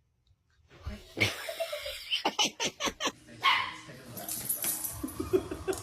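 Dog barking: after a brief silence, a run of short, quick barks and yips, with a louder bark about midway.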